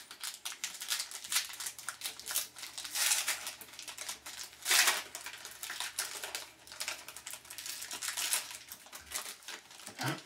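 Foil wrapper of a hockey card pack crinkling and tearing as it is opened by hand: a run of crackles, with louder rips about three and five seconds in.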